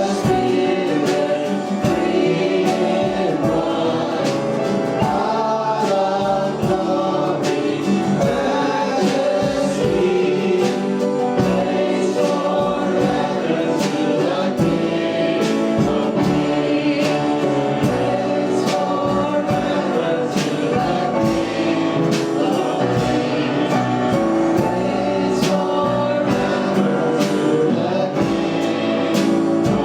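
Congregational worship singing: a group of voices singing a gospel song with instrumental backing and a steady beat.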